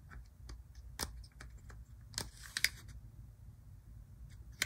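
Light, irregular clicks and taps of a plastic HO-scale model locomotive being handled and turned over in the hand.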